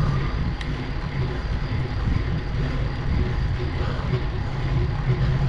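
Steady rushing noise of a mountain stream running beside the road, with a low rumble underneath.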